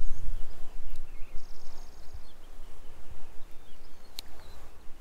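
Wind rumbling on the microphone by an open lake, easing after the first second, with scattered faint bird chirps and a short, fast high trill about a second and a half in. A single sharp click comes near the end.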